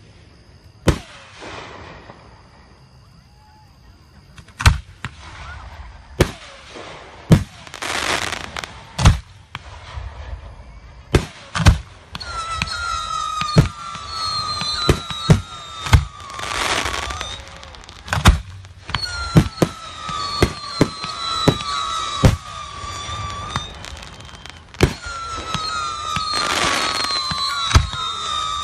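Fireworks display: aerial shells going off in a long irregular run of sharp bangs, with hissing, crackling rushes between them. From about halfway, a wavering whistle that falls in pitch sounds three times over the bangs.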